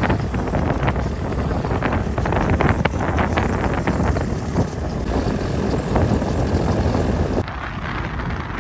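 Wind buffeting the microphone: a loud, gusty rumble that drops off suddenly near the end.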